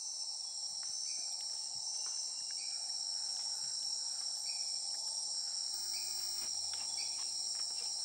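Steady, high-pitched chorus of tropical forest insects, cricket-like, with a few faint short chirps now and then.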